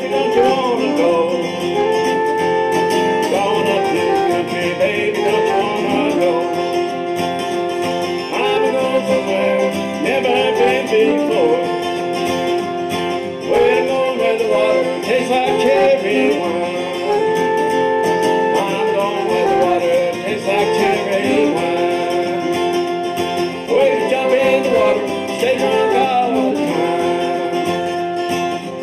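Steel-string acoustic guitar strummed and picked in a country style, with a man singing along.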